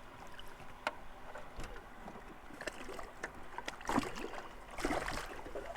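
Water splashing and knocking in a small fishing boat as a large flathead catfish is handled in the landing net: a sharp click about a second in, then several short splashy swishes about four and five seconds in.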